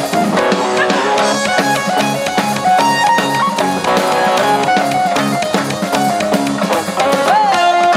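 Live band playing loud amplified music, with a drum kit keeping a steady beat under guitar.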